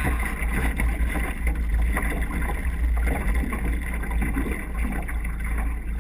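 Wind buffeting the microphone in a steady low rumble, over the general noise of a small boat on the water.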